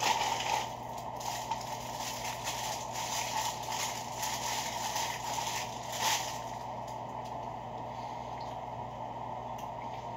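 McDonald's paper bag and paper sandwich wrapper rustling and crinkling as a sausage muffin is taken out and unwrapped, with a last crackle about six seconds in before the rustling stops.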